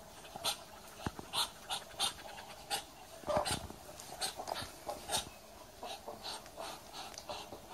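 Muscovy ducks giving short, breathy hissing calls at an irregular pace, about one or two a second.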